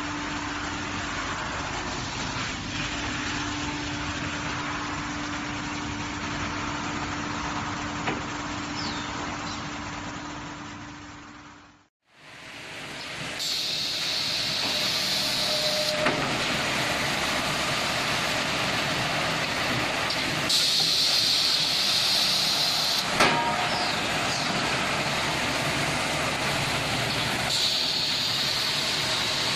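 Wide belt sanding machine and its automatic plywood feeding line running, a steady mechanical noise with a low hum. The sound cuts out about twelve seconds in and then returns as similar machine noise, with a sharper hiss rising three times for a couple of seconds each.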